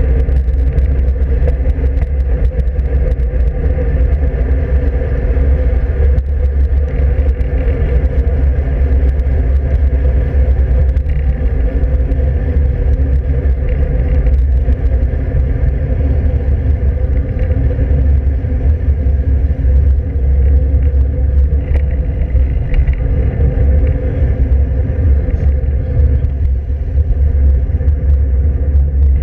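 Steady, loud wind rumble on the microphone of a handlebar-mounted camera on a moving road bike, mixed with road and tyre noise.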